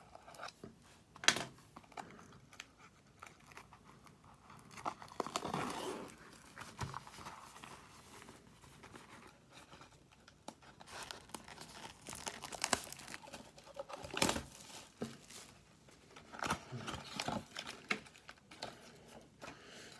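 Plastic shrink-wrap being torn off and crumpled as a sealed box of hockey trading cards is opened, with irregular crinkling and scattered sharp snaps.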